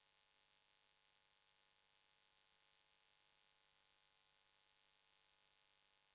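Near silence: a faint steady hiss with a low electrical hum.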